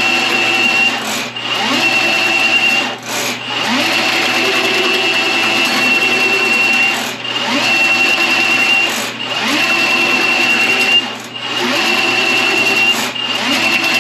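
Milwaukee M18 sectional drain machine running, spinning its 7/8-inch cable down a clogged main line. The motor dips briefly about every two seconds and spins back up each time, six times in all.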